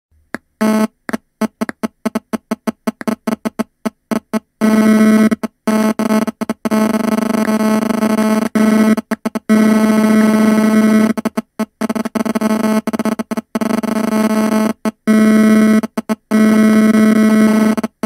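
Mobile phone interference buzzing through audio equipment, the stuttering hum a phone's radio signal induces in a nearby speaker. It starts as rapid short stuttering bursts for the first few seconds, then settles into long stretches of steady buzz broken by brief cuts.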